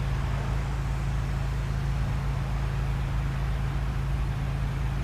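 Steady low rumble and hiss of outdoor background noise, even throughout.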